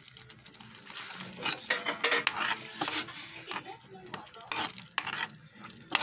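A metal ladle stirring and scraping through simmering spaghetti sauce in a pan. The scrapes are irregular and begin about a second in, over a faint steady sizzle.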